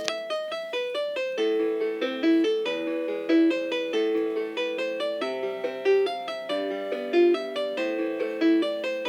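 Keyboard music: a melody of quick, piano-like notes over a steady, regular rhythm.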